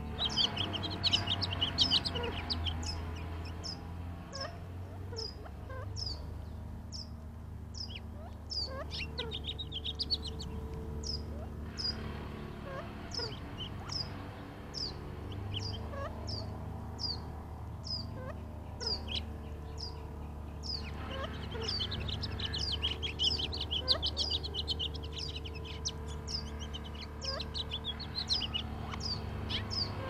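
Gambel's quail calling softly while drinking: a run of short high chirps, one or two a second, with busier bursts of calls now and then. Under them runs a steady low machine drone, which the uploader takes for a wood chipper.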